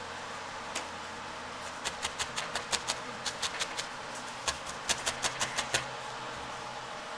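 Felting needle being jabbed repeatedly into wool on a foam sponge, fixing the ears to the head: quick runs of sharp clicks, about five a second, starting about two seconds in and pausing briefly midway, over a faint steady hum.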